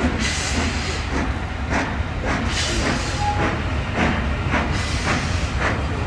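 LMS Black 5 two-cylinder 4-6-0 steam locomotive working hard as it pulls away with its train, chuffing at about two exhaust beats a second over hissing steam and a low rumble.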